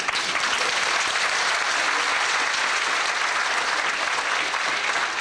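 Live audience applauding steadily: a dense, even clapping from many hands.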